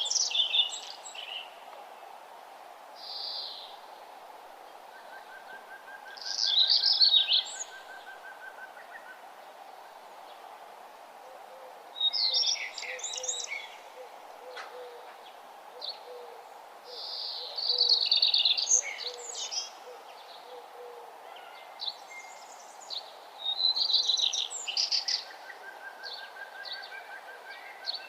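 A songbird singing short, rapid, high-pitched song phrases, one every five or six seconds, over a steady background hiss. Between phrases, fainter lower trills and soft low notes come from other birds.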